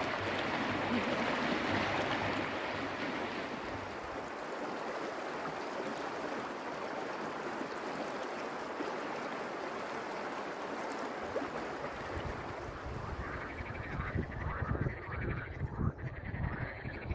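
Fast-flowing river water rushing over rocks, then, from about three-quarters of the way in, a chorus of frogs croaking in rapid repeated calls, with low rumbling bumps.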